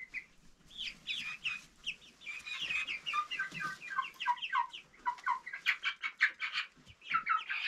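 Young chicks cheeping together: many short, high peeps, several a second, some sliding down in pitch.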